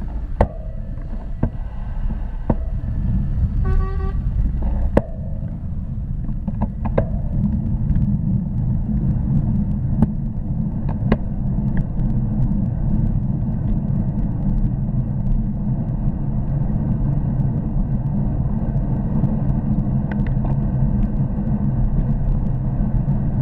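Wind rumble on a bike-mounted camera's microphone as the bicycle rides along a road, growing louder over the first several seconds as speed builds. Scattered clicks and knocks from the bike going over the road surface, and a brief pulsed pitched chirp about four seconds in.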